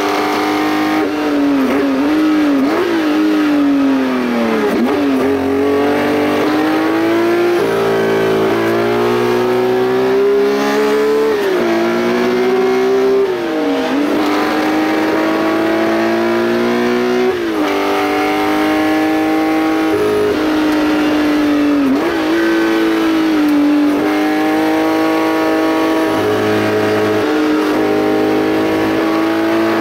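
Porsche 910 race car engine heard from inside the open cockpit at racing speed. The engine note climbs steadily and drops sharply at each gear change, several times over, with dips and quick rises as the car brakes and accelerates.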